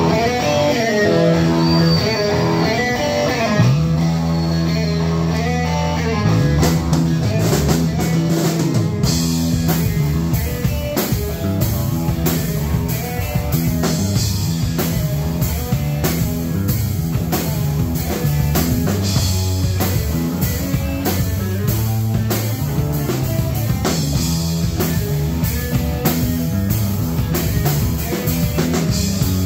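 Live rock band playing: electric guitar with sliding, bending notes over bass guitar, with the drum kit coming in fully about nine seconds in and keeping a steady beat.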